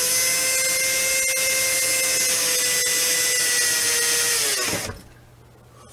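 Cordless drill with a small bit boring a pilot hole into a hollow rib of a Club Car Precedent golf cart roof. The motor runs at a steady whine, then winds down and stops about five seconds in. The bit has broken through the rib's first wall but not the whole roof.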